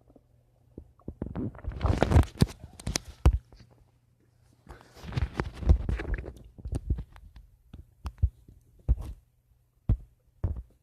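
A person's stomach gurgling: two long bubbling, crackling rumbles about a second and five seconds in, then single short pops and clicks near the end.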